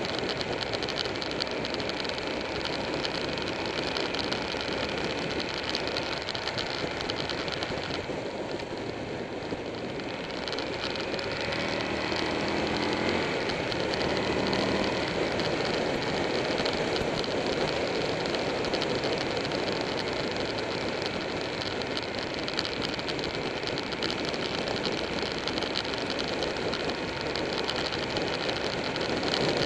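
Steady rush of wind over the microphone of a camera on a moving motorcycle, with the Buell 1125R's V-twin engine running under it. The engine note shows through more clearly for a few seconds about halfway in, when the wind eases.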